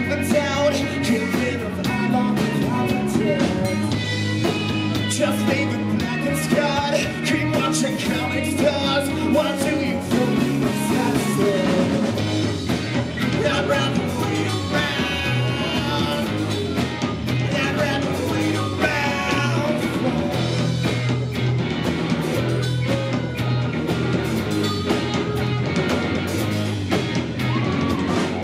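Live rock band playing loud and steady: a male singer over electric guitars and a drum kit.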